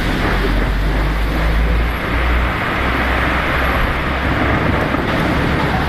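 Distant Taipei 101 New Year's fireworks, the barrage heard as a steady low rumble with crackle, the separate bursts running together.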